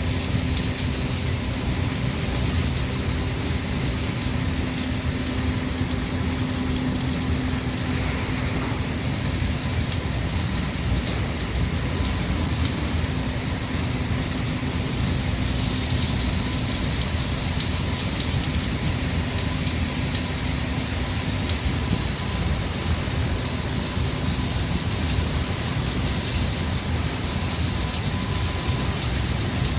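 Electric arc welding: the arc crackles and sizzles continuously without a break. A steady low hum runs under it and stops about two-thirds of the way through.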